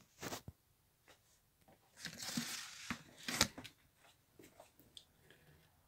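Handling noise from a turbocharger cartridge and its packaging on a cardboard-covered table: a crinkling rustle about two seconds in, with a few sharp clicks and knocks, the loudest just after it.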